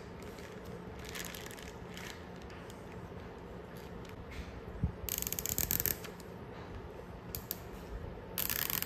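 Nylon zip tie being pulled tight around a plastic bag, its teeth ratcheting through the lock in a quick zip about five seconds in and a shorter one near the end. Soft plastic handling noises come between the two, over a faint steady hum.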